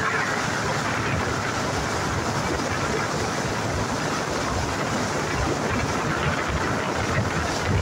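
Small canopied tour boat under way: its motor runs steadily beneath the rush of water along the hull.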